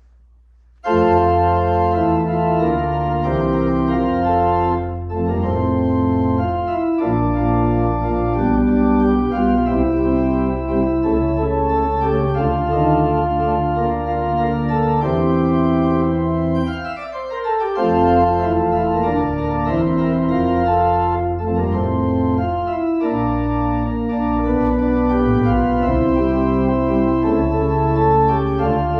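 Organ postlude: sustained full chords on a church organ, starting suddenly about a second in and moving from chord to chord, with short breaks between phrases.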